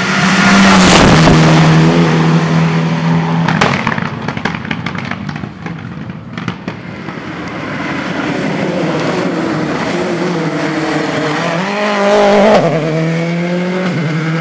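Rally cars at full throttle passing close, one after another, their engines revving high. A quick burst of sharp exhaust bangs about three and a half seconds in, then a second car comes up louder and louder, its revs climbing and dropping near the end.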